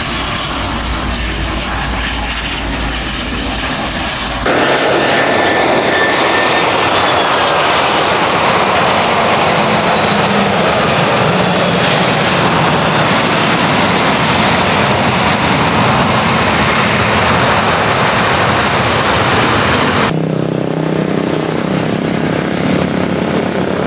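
Jet airliner engines running loud on the runway, in separate clips joined by abrupt cuts. About four seconds in the sound jumps louder as an Airbus passes close, with a falling whine, and near the end it switches to a somewhat quieter jet on approach.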